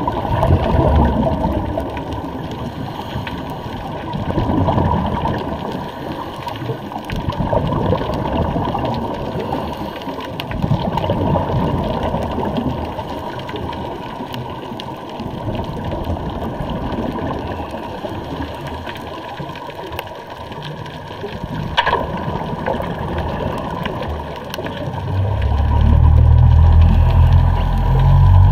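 Muffled underwater noise heard through a diving camera's housing: water rushing and bubbling that swells and fades every few seconds. A low rumble builds up in the last few seconds.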